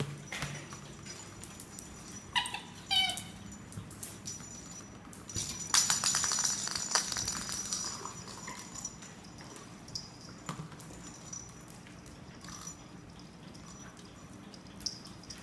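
Dogs at play: a short run of high squeaks about two and a half seconds in, then a couple of seconds of scratchy rustling about six seconds in, with a few light clicks after.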